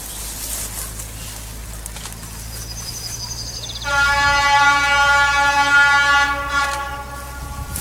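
Horn of a class 810 diesel railbus sounding one long steady blast of about three seconds, starting about four seconds in and then fading. Underneath runs a low steady rumble from the approaching railbus.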